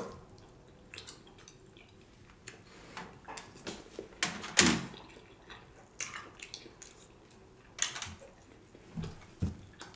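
Close-miked eating sounds: chewing and wet mouth smacks with scattered light clicks of a plastic fork against food and dishes.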